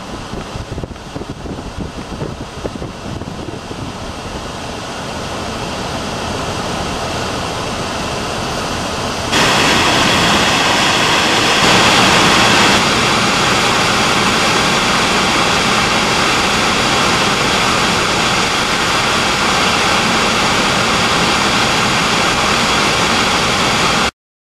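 Steady road and wind noise of a car driving, heard inside the cabin. It grows louder, steps up suddenly about nine seconds in, and cuts off just before the end.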